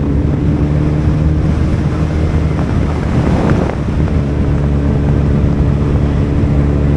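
Motorcycle engine running at a steady cruising speed while riding, with wind rushing on the microphone. About halfway through, the engine note briefly fades under a louder rush of noise, then returns.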